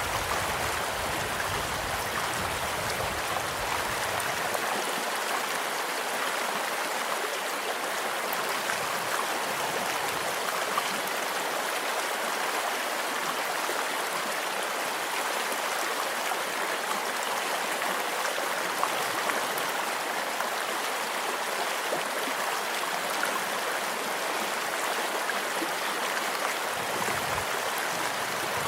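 Stream flowing steadily over rocks, with faint crackles from a campfire scattered through it and two slightly sharper pops, about 11 and 19 seconds in.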